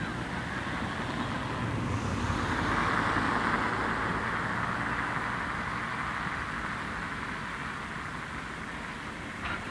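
A train passing by, its rumble and wheel noise swelling to a peak about three seconds in, then slowly fading as it moves away.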